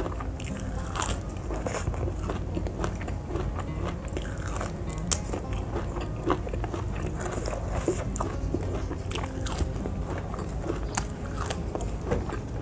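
Close-up crunchy biting and chewing of raw vegetables: many irregular sharp crunches and wet chewing, the sharpest about five seconds in.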